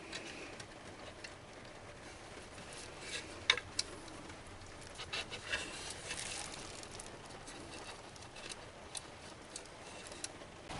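Faint, scattered light clicks and taps of hand tools and parts being handled as fasteners are tightened, the sharpest a pair about three and a half seconds in and a cluster around five to six seconds.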